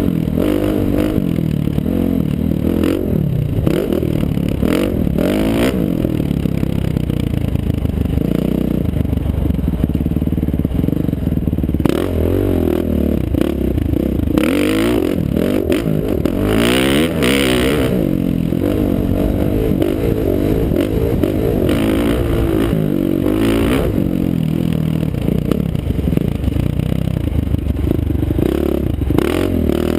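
KTM 450 SX-F Factory Edition motocross bike's four-stroke single-cylinder engine being ridden hard, its revs climbing and falling again and again through the gears. A few short bursts of rushing noise come in about halfway through and again later.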